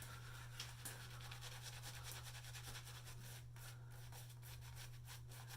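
Boar-bristle shaving brush faintly scrubbing soap lather onto two-day stubble in quick, irregular strokes, over a steady low hum.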